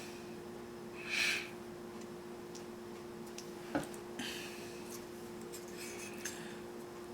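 A few light clicks and soft rustles of small model-kit parts being handled, with one sharper click near the middle, over a steady low hum.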